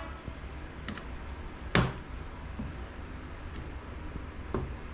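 Flathead screwdriver prying at the dust seal in a motorcycle front fork leg. It gives a few sharp metallic clicks and knocks, the loudest just under two seconds in.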